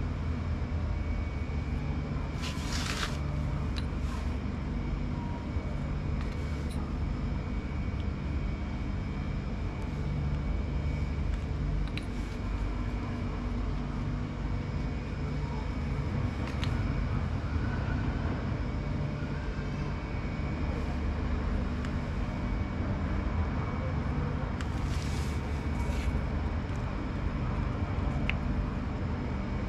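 Top-loading pulsator washing machine running: a steady low motor hum that swells and fades every second or two, with a faint high whine and a couple of brief hissing bursts.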